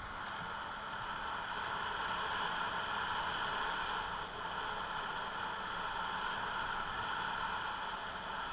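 Steady rushing noise of a vehicle on the move, with a faint low hum underneath.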